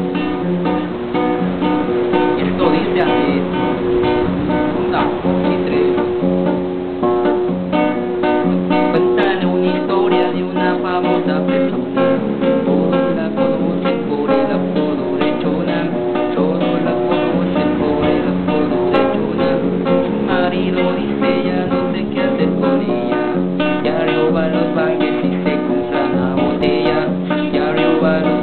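A man singing while strumming chords on an acoustic guitar in a steady rhythm.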